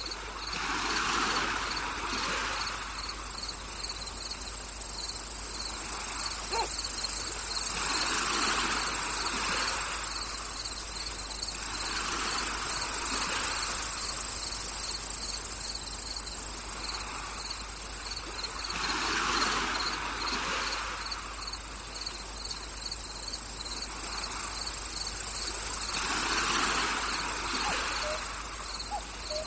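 Crickets and other insects chirring: a steady high trill with a row of quick, even chirps beneath it. Over them a soft rush of noise swells and fades every five to seven seconds.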